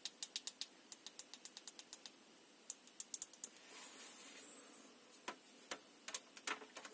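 Small sharp plastic clicks, several a second, as the Bliiq Hummingbird Bluetooth earphones and their inline remote are handled; a brief rustle about four seconds in, then a few more scattered clicks.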